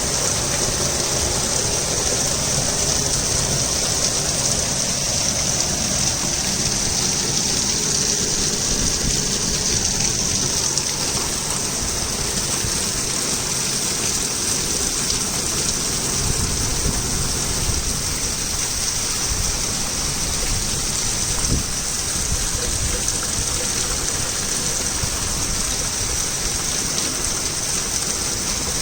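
Torrential rain falling steadily, a continuous heavy hiss of rain on surfaces.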